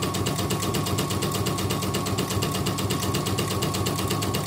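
Yoko portable embroidery machine, covers off, stitching a design with a fast, even rhythm of needle strokes. It is a test run after repair work on the rotary hook and bobbin case.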